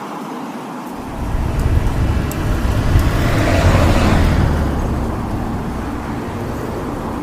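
A road vehicle passing by: a rumble builds about a second in, is loudest around three to four seconds, then fades away.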